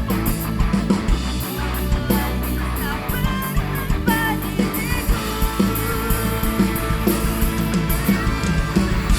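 A band playing a pop-rock song live, with guitar, bass and a steady drum beat; a lead line slides and bends in pitch in the middle.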